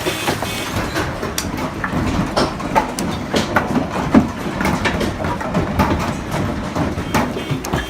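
Irregular knocks and clatter over a steady rumbling noise.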